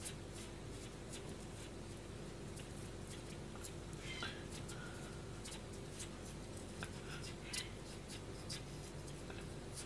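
Nakiri knife shaving a daikon radish into a thin sheet, katsuramuki-style: faint irregular small clicks and scraping of the blade through the radish, with a brief high squeak about four seconds in. A steady low hum runs underneath.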